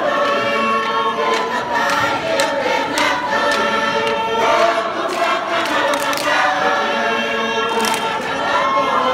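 Tongan lakalaka: a large group of performers singing together in harmony.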